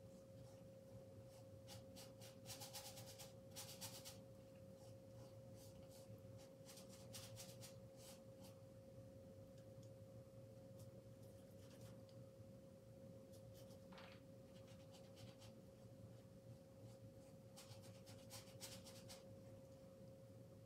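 Faint, scratchy strokes of a paintbrush on canvas, in several short clusters, over a steady faint humming tone.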